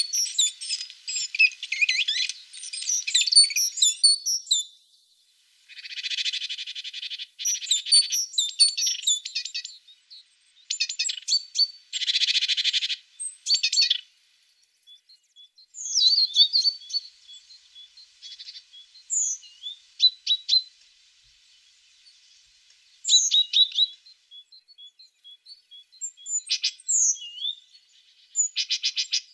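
Tits singing and calling: bursts of high chirps and trills, thick for the first four seconds, with two longer buzzy phrases about six and twelve seconds in and short pauses between.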